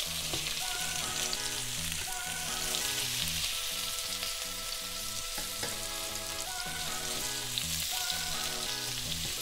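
Potatoes and mushrooms frying in a pan: a steady sizzle as they are stirred. Light background music with changing notes runs underneath.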